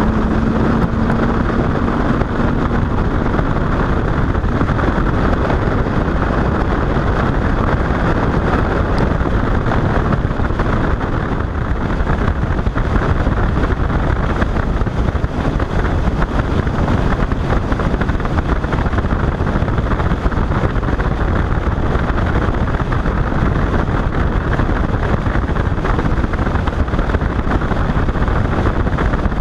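Bass boat running at speed across the water: a steady rush of motor, hull and wind noise, with wind buffeting the microphone.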